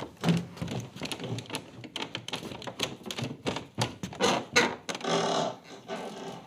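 Foley sounds performed for a film: a dense, irregular run of small clicks, taps and knocks, with a few short ringing patches in the second half.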